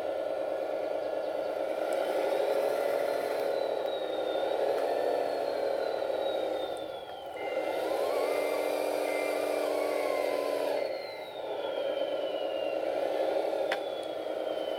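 Wedico CAT 966G RC model wheel loader driving: its Servonaut sound module plays a diesel engine that rises and falls with the throttle, dipping twice, over a high whine from the electric drive that glides up and down in pitch. A reverse-alarm beeping runs from about halfway through for a few seconds as the loader backs up.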